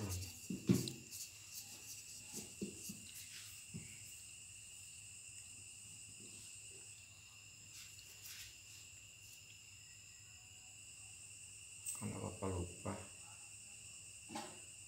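Crickets chirring steadily at a high pitch, with a few soft knocks and rustles over them: a sharper knock about a second in and a short cluster of thuds near the end.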